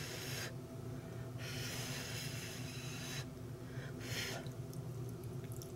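A person breathing close to the microphone: three airy breaths or sniffs, the middle one long, over a steady low hum.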